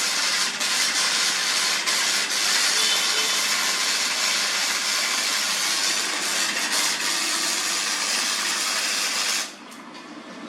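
Electric welding arc crackling and hissing steadily while a bead is laid, cutting off abruptly about nine and a half seconds in.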